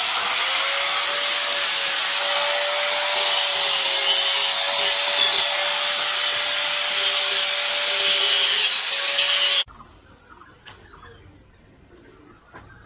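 Handheld electric angle grinder spinning up with a rising whine, then running steadily with a loud grinding hiss against a metal frame pipe. It cuts off abruptly about ten seconds in, leaving only faint background.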